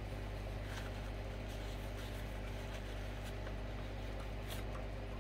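A few faint light clicks and taps of small parts being handled, over a steady low electrical hum.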